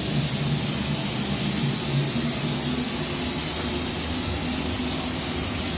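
Pressure cooker hissing steadily as it vents steam under pressure, a high, even hiss with a steady low hum beneath.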